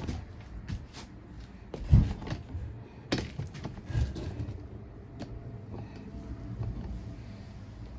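Scattered clicks and knocks of hand tools and small metal carburetor parts being handled, with a louder knock about two seconds in and a sharp click about three seconds in.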